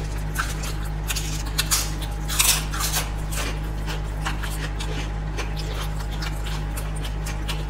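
Close-miked chewing and wet mouth sounds of people eating, in scattered short clicks and smacks, with a louder cluster about two and a half seconds in, over a steady low hum.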